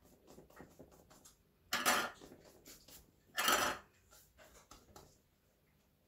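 Thin warqa pastry sheets rustling as they are folded over the filling in a round baking dish: two short rustling bursts about two and three and a half seconds in, with light taps and crinkles between.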